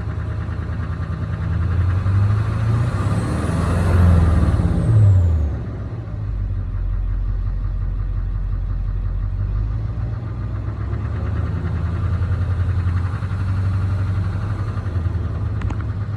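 2006 Duramax 6.6 L V8 turbo-diesel running, revved up to a peak about four seconds in and dropping back to idle near six seconds, then raised slightly again, with a high whistle rising and falling with the revs. This is the ticking the owner hears around 1200–1500 rpm, which he cannot place as either the exhaust manifold or the injectors.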